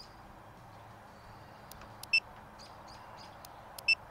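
Vevor laser distance meter beeping as it is operated to take a distance reading: two short, high electronic beeps, about two seconds in and again near the end.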